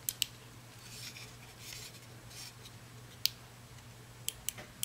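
Faint rubbing and several small, sharp clicks of plastic parts as a trigger and its microswitch are worked into a prop blaster's plastic trigger housing, over a low steady hum.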